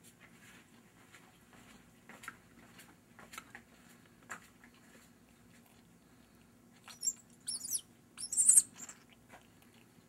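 Nestling red-bellied woodpecker giving two short bursts of high, wavering begging calls about seven and eight seconds in, after a few soft clicks from the bird being handled and fed. A low steady hum sits underneath.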